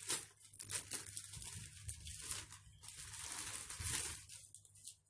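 Packaging being opened by hand: plastic and wrapping rustling and crinkling in irregular bursts, dying away near the end.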